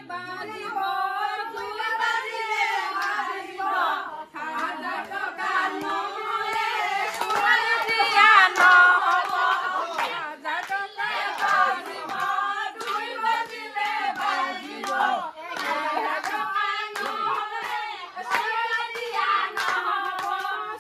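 A group of voices singing together, with hand clapping running through the song.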